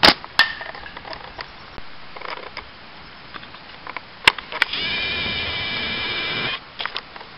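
Catapult shots: a sharp slap of the flat rubber bands as the ball is released at the start, a second click a moment later, and another sharp release snap about four seconds in. It is followed by a steady pitched whine lasting about two seconds.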